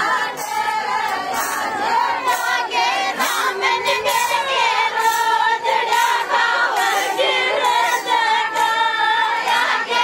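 Group of Rajasthani women singing a Meena folk song together, many voices wavering around the same tune, with a regular sharp beat about twice a second.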